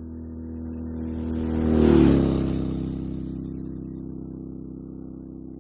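A car driving past: its engine note swells, drops in pitch as it passes about two seconds in, then fades away.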